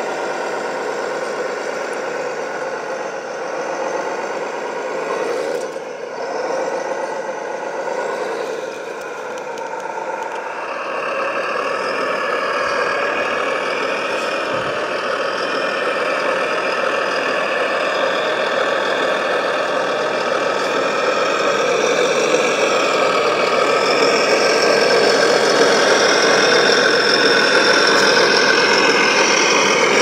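Electric gear motors and hydraulic pump of a large RC construction model running. Their pitch rises and falls through the first ten seconds, then settles into a denser, steadier whine that grows louder toward the end.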